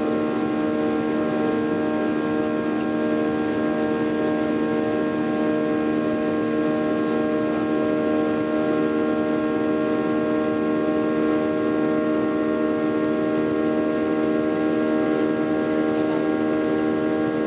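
Airliner jet engines heard from inside the cabin while climbing after takeoff: a steady drone of several held tones over a constant rush of air.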